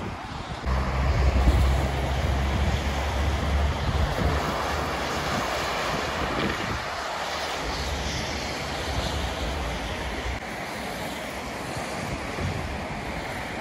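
Wind gusting against the microphone in low rumbling buffets, strongest from about a second in to four seconds and again around eight to ten seconds, over a steady rush of distant road traffic.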